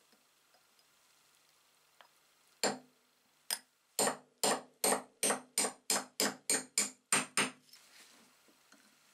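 Hammer tapping a pin punch to drive the pin out of a hand drill's bevel gear: about a dozen sharp metal-on-metal taps, each with a short metallic ring. Two come slowly, then a quick even run of about three a second.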